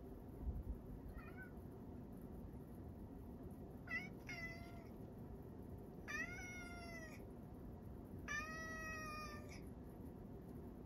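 Male domestic cat meowing: a faint short call about a second in, then a run of louder meows, the last two drawn out to about a second each.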